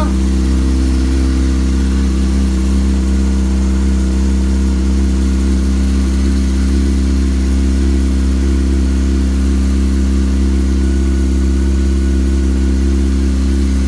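2005 Yamaha R6's inline-four engine idling steadily after an oil and filter change.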